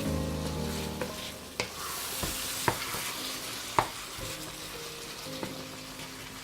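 A spoon stirring chicken curry in a pot over a steady sizzle, knocking sharply against the pot several times.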